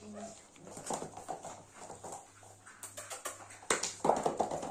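Corgi puppies playing on a hard floor: claws clicking and scrabbling, with light knocks that grow busier and louder in the second half and one sharper knock about three-quarters through.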